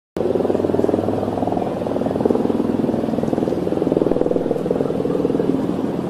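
A motor engine running steadily with a fast, even pulse, cutting in abruptly at the start.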